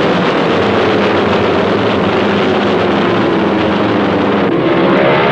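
Loud aircraft engine noise, a steady rush with a whine that slowly falls in pitch.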